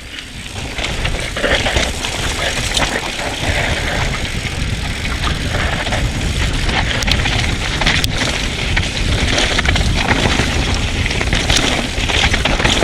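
Mountain bike rolling down a dirt trail: tyres on dirt and rock, the bike rattling, wind buffeting the microphone, and a few sharp knocks from bumps.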